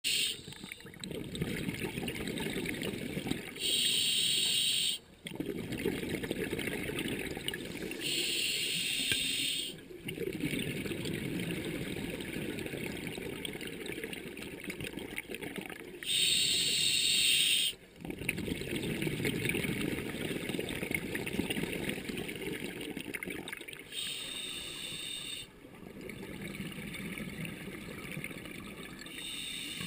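Scuba diver breathing through a regulator underwater: five hissing inhalations of a second or two each, a few seconds apart, with a low bubbling rumble of exhaled air between them.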